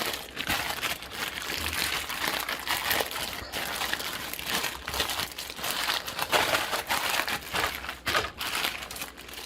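Plastic bag of marinating pork strips crinkling in irregular bursts as it is squeezed and kneaded by hand to work the marinade into the meat.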